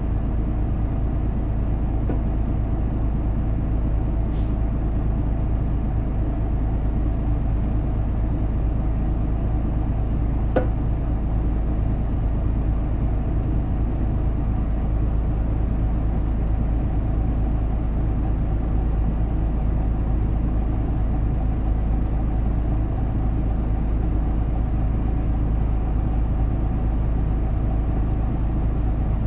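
Isuzu Erga Mio (KK-LR233J1) city bus running with a steady low diesel rumble, with a sharp click about ten seconds in.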